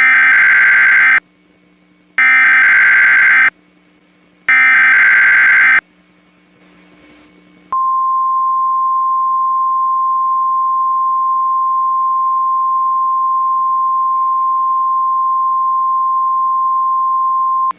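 NOAA Weather Radio Emergency Alert System alert opening: three loud data bursts of the SAME header, each about a second long, then after a short pause the steady 1050 Hz warning alarm tone held for about ten seconds, with a faint hum underneath.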